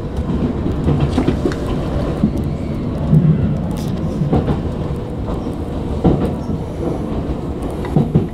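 Tokyu 9000-series electric train running on the rails, a steady low rumble broken by sharp wheel clicks over rail joints, as it slows into a station.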